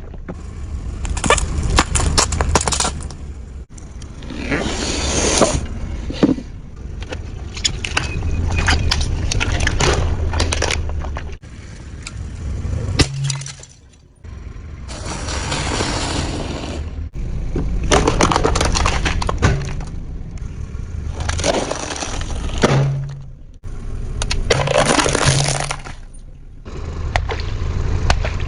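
Objects crunching, cracking and breaking under a car's tyres, in repeated runs of sharp crackles over the low rumble of the car's engine.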